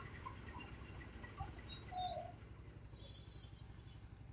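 Faint bird chirps over a steady low rumble from the stuck truck's idling engine, with a short burst of hiss about three seconds in.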